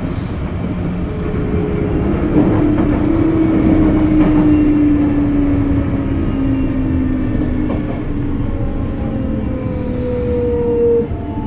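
Hitachi GTO-VVVF inverter and traction motors of a Sotetsu 8000 series train, heard over steady wheel and rail noise. Several tones fall slowly in pitch as the train slows under electric braking, and one tone cuts off abruptly near the end.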